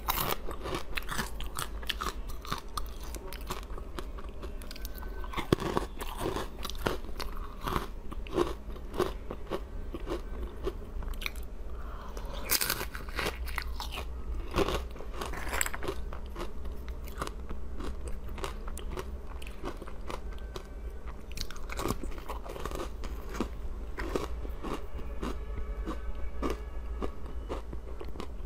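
Close-miked biting and crunching of frozen basil-seed ice, a dense run of crisp crunches and chewing with a few louder bites every several seconds.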